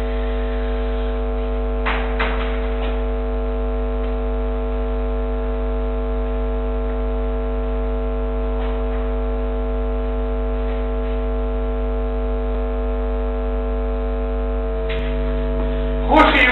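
Steady electrical mains hum with many overtones from a security camera's audio feed, with a few faint short noises about two seconds in. A louder burst of noise comes in just before the end.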